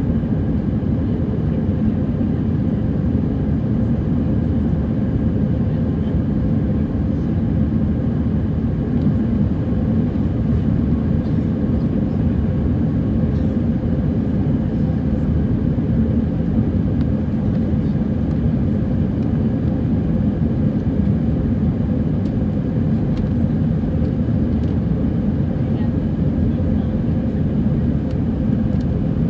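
Steady cabin noise inside an Airbus A320 in its climb after takeoff: jet engine drone and rushing airflow make a loud, even rumble, with a faint steady hum on top.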